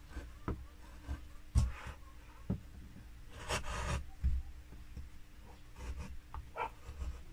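Wood carving chisel working linden wood by hand: a few sharp taps and one short scraping cut about halfway, as the leaf's central vein is rounded.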